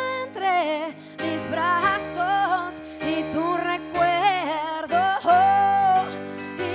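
A woman singing a wavering, gliding melody in short phrases over steady, sustained accompaniment chords.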